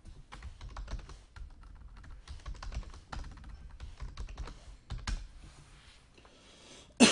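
Typing on a computer keyboard: a quick, uneven run of key clicks for about five seconds that then thins out. A person's voice breaks in at the very end.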